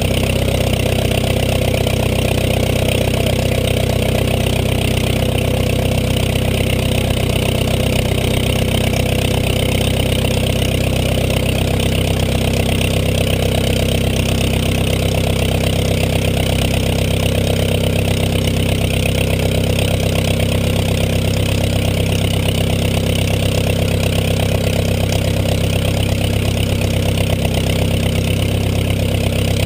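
The Ryan STM's Menasco four-cylinder inverted inline air-cooled engine idling steadily on its first run in 35 years, with a slight change in engine speed about twelve seconds in.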